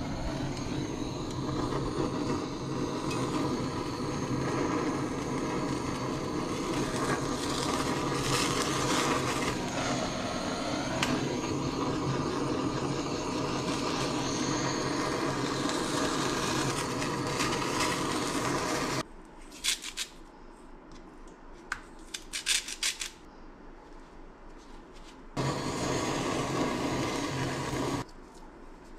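Handheld kitchen blowtorch burning with a steady hiss as it sears a tuna steak in a pan. The flame cuts off about two-thirds of the way through, followed by a few light clicks and knocks. Another stretch of the same hiss comes shortly before the end.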